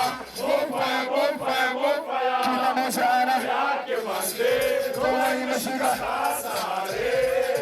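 A group of voices chanting together: a hip-hop crowd singing along over music.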